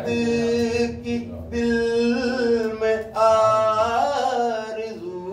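A man's voice singing a devotional poem unaccompanied, drawing out long, steady held notes, then rising to a higher phrase about three seconds in.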